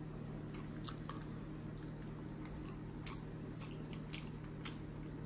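A person chewing a mouthful of jerk chicken, with a few short, wet mouth clicks and smacks over a faint, low, steady hum.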